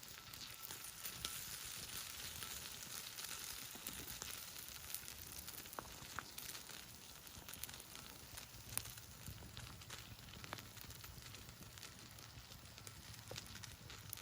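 Yakitori sizzling on a hot iron griddle over a campfire: a steady hiss with scattered sharp pops.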